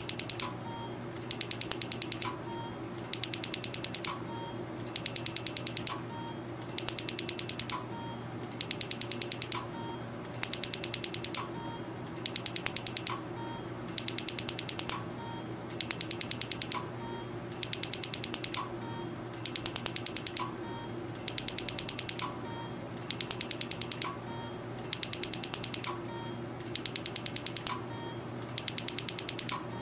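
MiraJet laser needle-free injector firing microjets into a test block: a quick burst of rapid clicks about every two seconds, each followed by a short beep, over a steady machine hum.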